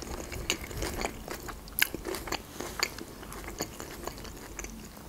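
Close-up chewing of a mouthful of Caesar salad: many small, irregular crisp crunches and wet mouth clicks.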